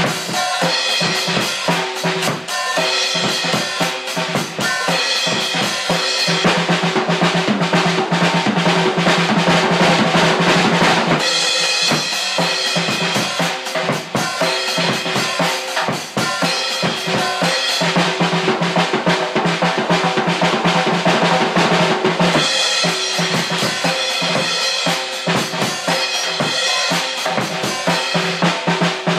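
Acoustic drum kit played without a break: bass drum, snare and cymbal hits in a fast, busy beat.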